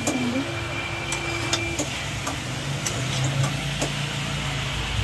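Metal spoon clicking and scraping against a steel kadai as chicken pieces are stirred while frying, with a light sizzle. A steady faint tone sounds for the first couple of seconds, and a low rumble comes up near the end.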